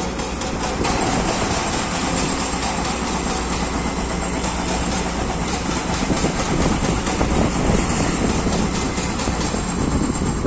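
Excavator running, a dense steady machine noise with a thin high whine on top.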